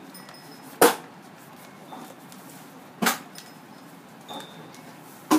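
Three sharp knocks, about two seconds apart, over a quiet room background.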